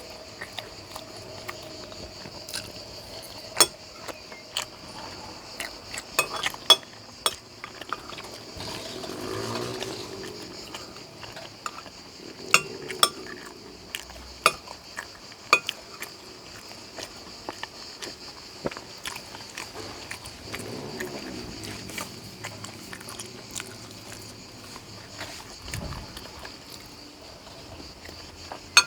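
Cutlery tapping and scraping on a plate while eating, in scattered sharp clinks over a steady high-pitched hiss.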